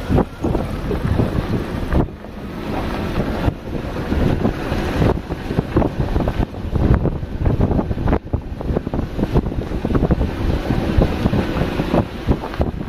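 Wind buffeting the microphone at a vehicle's side window, over the low rumble of the vehicle driving on a rough, rocky dirt track, with frequent knocks and jolts.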